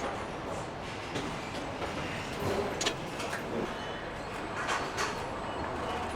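Engine assembly line noise: a steady machinery hum with scattered short metallic clicks and knocks and a few brief hisses.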